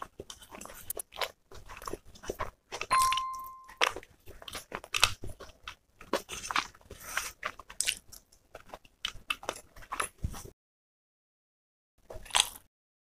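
Close-miked crunching and chewing of crisp food, many quick crunches that stop about ten and a half seconds in, with one more short crunch near the end. About three seconds in, a short bell-like chime rings over the chewing.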